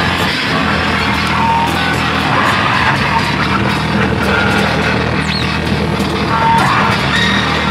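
Live noise music from electric guitar run through effects pedals together with electronics: a loud, dense, unbroken wall of noise over a steady low drone, with short high squealing tones scattered through it and a brief rising whistle about five seconds in.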